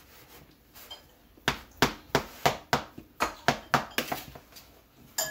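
A spoon knocking against the side of a plastic tub as baking soda is stirred into crumbled cheese curds. After a quiet start there is a quick run of sharp knocks, about three a second, for under three seconds, then one more knock near the end.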